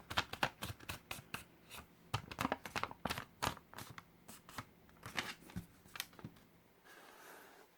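A sheet of origami paper being folded and creased by hand for a triangle fold: irregular crisp crackles and taps, thinning out near the end.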